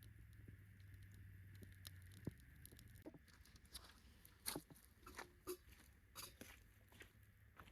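Small campfire of split dry pine twigs crackling faintly, with sparse sharp snaps and pops that come more often after about three seconds. A low hum runs under the first three seconds and then stops.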